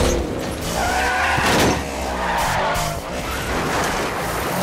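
Race cars' engines revving hard with tyres squealing and skidding, and a loud burst about a second and a half in.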